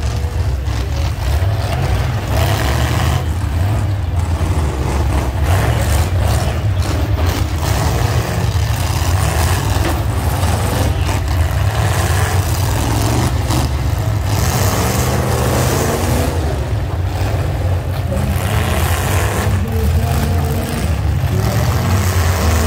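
Demolition derby cars' engines running and revving, over a heavy, steady low rumble.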